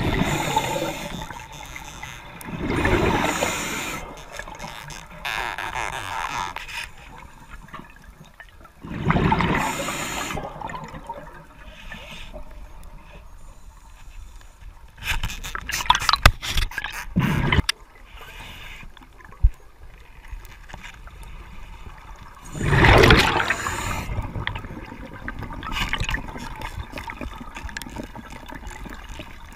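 Underwater sound: loud bursts of rushing, gurgling water and bubbles every few seconds, with quieter stretches and a few sharp clicks in between.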